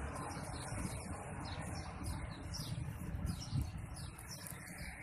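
Small birds chirping many times in quick succession, high and short, over a low rumble.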